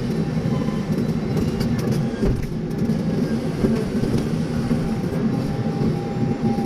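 Excavator's diesel engine running steadily under load, with a few knocks from the machine around two seconds in.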